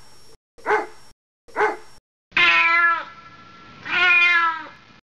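A hound dog calling: three short barks, then two drawn-out bays, each about three-quarters of a second long.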